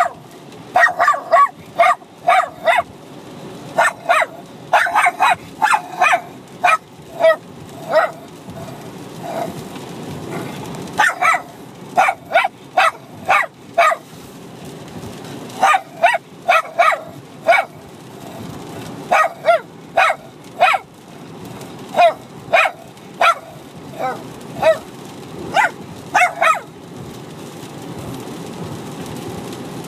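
Two Bichon Frises, a puppy and an adult dog, play-fighting and barking at each other in quick runs of short, sharp barks with brief pauses between runs. The barking stops a few seconds before the end, leaving a steady low rumble inside the car.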